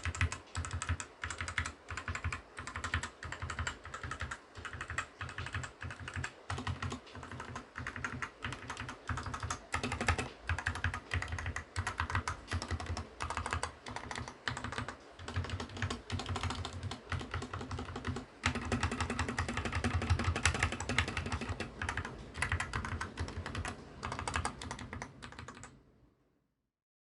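Fast, continuous typing on a Fantech MAXFIT61 60% mechanical keyboard, a rapid stream of key clicks that stops abruptly near the end.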